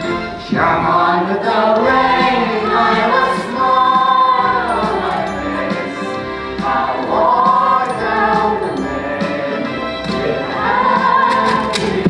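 A chorus of young voices singing together in long, held phrases: the cast of a children's theater musical singing in the finale.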